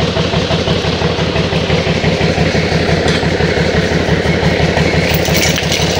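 Large truck engine idling close by: a steady, even low throb.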